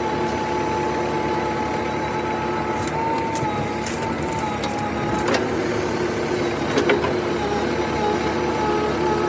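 Heavy diesel machinery running steadily, with a thin, steady whine over the engine, and two sharp knocks about five and seven seconds in.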